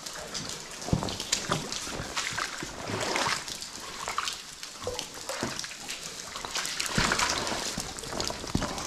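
Water sloshing and splashing under wading steps in a flooded tunnel, with drops falling from the ceiling and pattering into standing water. Irregular splashes swell louder about a second in, around three seconds in and near seven seconds in.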